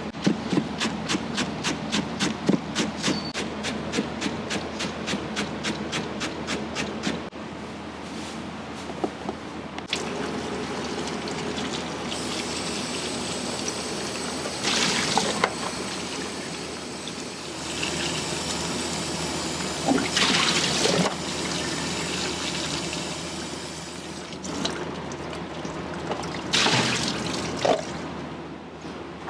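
Kitchen work: a fast, even tapping, about three to four strokes a second, for the first seven seconds, then water running and splashing, with a few louder surges.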